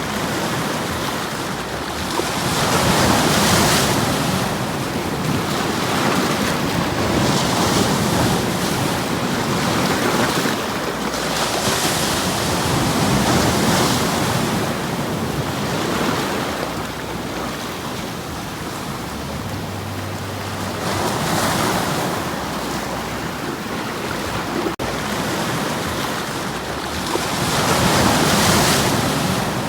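Sea waves breaking and washing on the shore, the surf swelling and falling back every few seconds.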